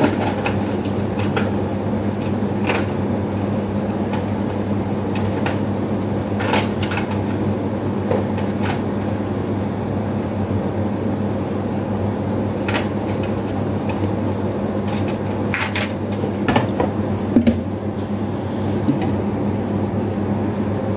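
Hard plastic parts of a faucet water filter kit and their clear plastic packaging clicking and rattling as they are handled, a handful of sharp clicks at irregular moments over a steady low hum.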